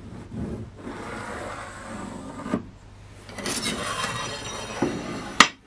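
Pencil scratching along a steel rule as it draws a line on a plywood board, then the metal rule and square sliding over the wood, ending in one sharp tap near the end.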